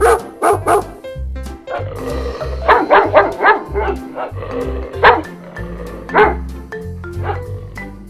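A dog barking in short, sharp barks: three quick barks at the start, a run of several about three seconds in, then single barks about a second apart. Cheerful background music with a steady bass plays underneath.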